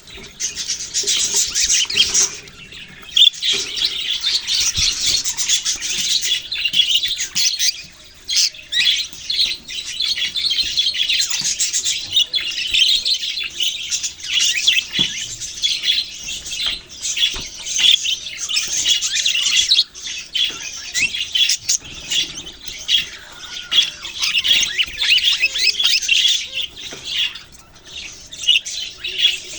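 Several budgerigars chirping and chattering over one another in a dense, unbroken stream of high-pitched warbles and squawks.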